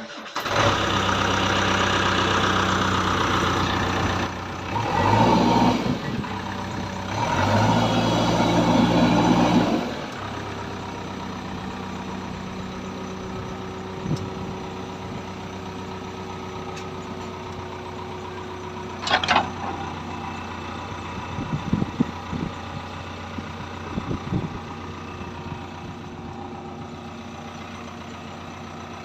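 JCB backhoe loader's diesel engine running, rising twice in the first ten seconds, then settling to a steady idle with a few clicks and knocks.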